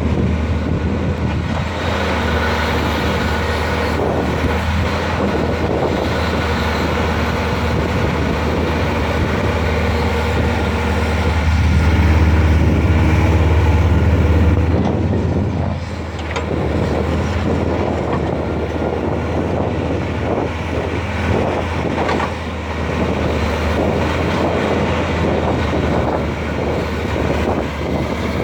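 Caterpillar 320C hydraulic excavator's diesel engine running, a steady deep hum that swells louder about halfway through for a few seconds, then drops back. In the second half it turns more uneven, with short knocks and clatter over the engine.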